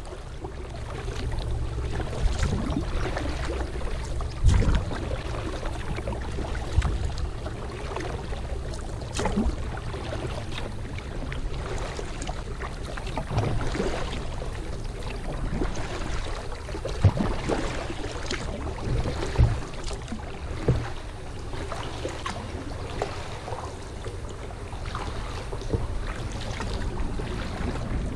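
Kayak paddling: paddle blades dipping and splashing in the river water, with irregular drips and knocks, over a low steady rumble.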